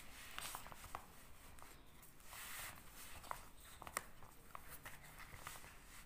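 Faint handling sounds of a pen and a paper workbook: scattered light clicks and soft rustles over quiet room tone.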